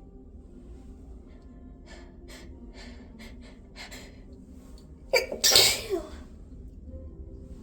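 A run of short, catching, hitching breaths about two to four seconds in, building up to one loud induced sneeze about five seconds in.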